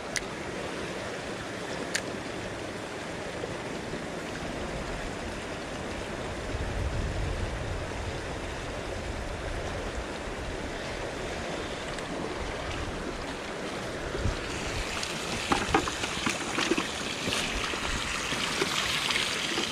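Shallow creek water running steadily over rocks in a riffle. Near the end, brighter splashing and dripping as a landing net full of water is lowered into a bucket.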